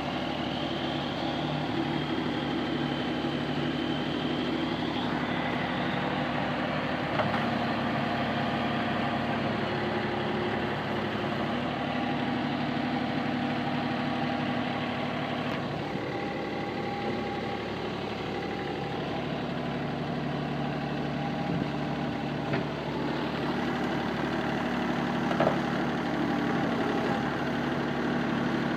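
Vehicle engine running steadily, its pitch shifting a few times, with a few small knocks later on.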